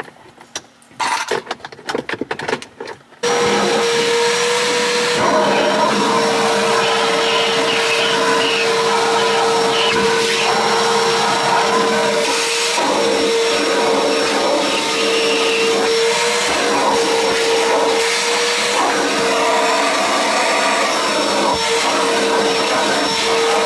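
Vacuum cleaner cleaning a car's interior. A few clicks and knocks come first, then the motor starts about three seconds in and runs steadily with a high whine whose pitch dips briefly a few times.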